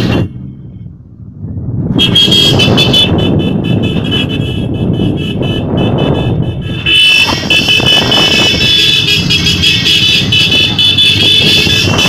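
A group of Royal Enfield motorcycles riding together, engines running with wind on the microphone, while high-pitched horns honk about two seconds in and again from about seven seconds on.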